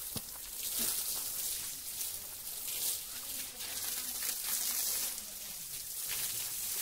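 Water from a hose pipe spraying against an elephant's hind legs as it is washed down: an uneven hiss that swells and fades.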